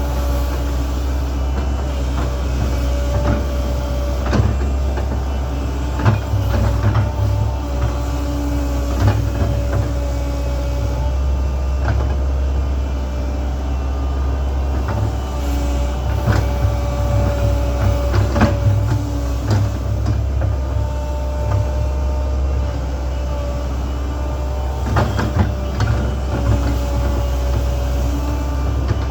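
Link-Belt 2700 excavator working: the diesel engine runs steadily under load, with whining tones that come and go as the machine moves, and frequent clanks and knocks of the bucket and rock.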